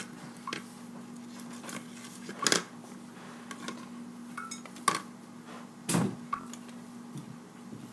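A utensil knocking and scraping against a small bowl while glue and borax solution are mixed into slime, in irregular clicks with louder knocks about two and a half, five and six seconds in.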